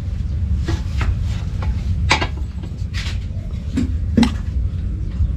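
A hammer strikes a metal hook being driven into a brick wall, about six sharp blows at uneven intervals over a steady low rumble.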